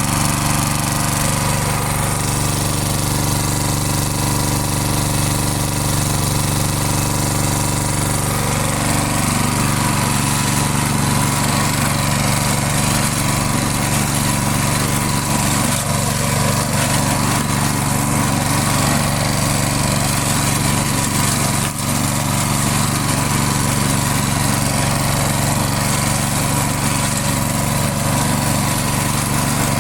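Briggs & Stratton single-cylinder engine of a push lawn mower running at high idle, holding a steady pitch.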